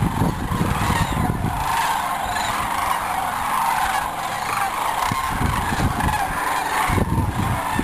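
Thousands of sandhill cranes calling at once in a continuous warbling, bugling chorus, with strong wind rumbling on the microphone in several gusts.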